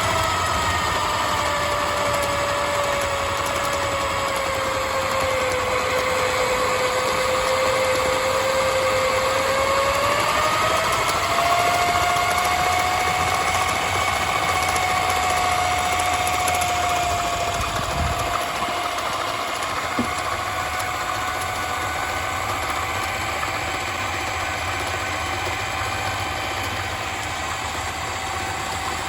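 Black & Decker mains drill motor driving a homemade lathe through a paracord belt and skateboard-bearing spindles, its speed set by a plug-in dimmer switch. A steady whine sags slightly in pitch, then rises about ten seconds in as the speed is turned up, and eases back a little later on.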